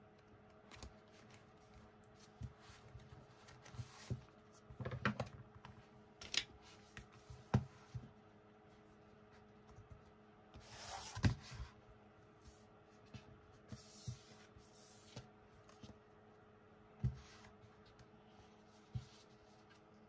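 Hands handling a photobook album and photocards on a table: scattered light taps and clicks of cards and card-stock pages, with a short cluster about five seconds in and a brief paper rustle about eleven seconds in.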